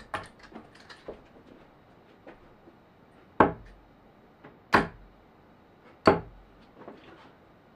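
Three darts striking a dartboard in turn, three sharp thuds a little over a second apart, with a few faint clicks before them.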